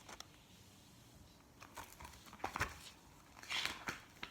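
Faint rustling of paper pages being handled, with a few light taps and clicks in the second half.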